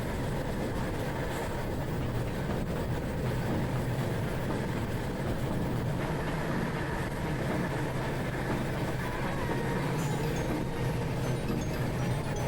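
Steady running rumble of a passenger train on the rails, heard from inside the coach.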